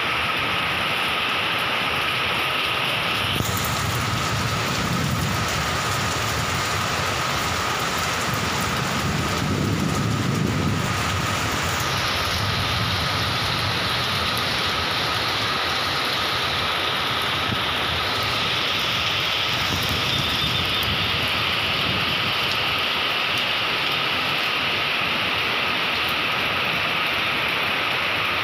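Heavy rain falling steadily. Between about three and twelve seconds in, a louder low rumble comes in and the hiss turns brighter.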